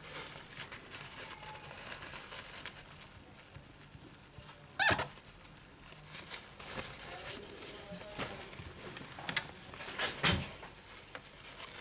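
A tissue dampened with isopropyl alcohol is rubbed over an iPad's display panel, making soft rubbing and small clicks. A few short squeaks rise in pitch: one about five seconds in and two near the end.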